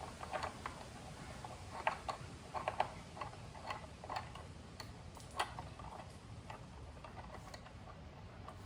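Faint, irregular light clicks and taps of hands handling and fitting air-filter parts and mounting bolts, a few clustered together near the middle.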